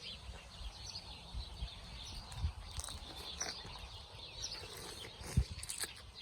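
Small birds chirping over a low rumble of wind or microphone handling, with one short knock about five seconds in.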